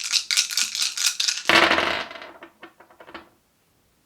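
Yahtzee dice rattling as they are shaken, then thrown about one and a half seconds in, clattering and tumbling to a stop with a few last scattered clicks.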